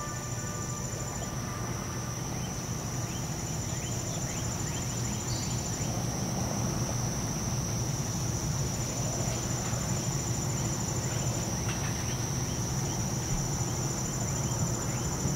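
Crickets trilling in a steady high chorus over a low rumble, as the last music notes fade out in the first second.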